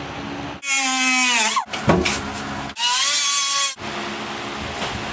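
Cut-off wheel cutting rusted sheet-metal floor in two bursts of about a second each: a high whine over a gritty hiss, the pitch sagging at the end of the first burst and climbing at the start of the second. A fan hums steadily between them.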